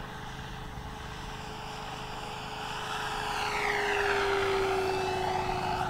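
FMS F4U Corsair 1.7 m electric scale RC model, with a brushless motor turning a four-bladed propeller, flying a low pass. Its steady propeller whine grows louder from about three seconds in, peaks, and drops slightly in pitch as the plane goes by.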